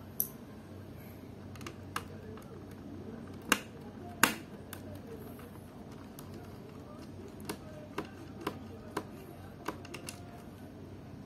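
Irregular sharp plastic clicks and taps from hands working on a laptop's plastic bottom case, about a dozen in all, the loudest two close together near the middle and a looser run of smaller ones near the end.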